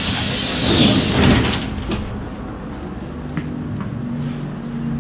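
Pneumatic doors of a ZiU-682G trolleybus working at a stop: a loud rush of released air with door clatter, lasting about a second and a half. After it comes the trolleybus's steady low hum.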